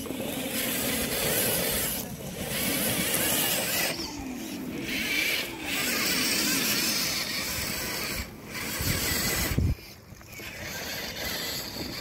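Electric motors and gearboxes of RC crawler trucks whining, the pitch rising and falling with the throttle, over a steady hiss. A louder low rumble comes just before ten seconds in and cuts off sharply.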